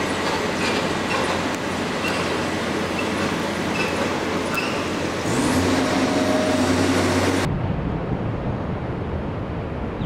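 City street traffic noise with a few faint squeaks, then a heavier vehicle's engine drone rising in the middle. The sound cuts off abruptly and is replaced by a duller, low rumble.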